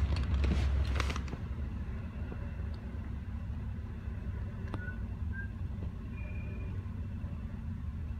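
Commuter train's bilevel coaches rolling past a grade crossing, heard from inside a car as a steady low rumble. A few sharp knocks come in the first second.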